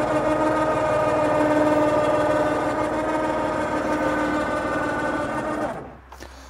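A small electric motor running with a steady hum and a fast buzz, cutting off suddenly near the end.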